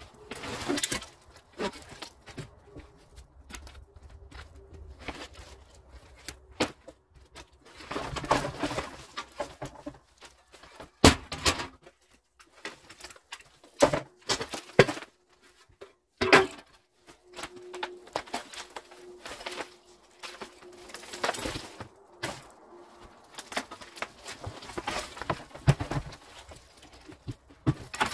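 Irregular knocks, thuds and scraping of debris being pulled out and handled while a burnt building is gutted, with rustling bursts between the hits. The sharpest knocks come about eleven seconds in and again near the middle.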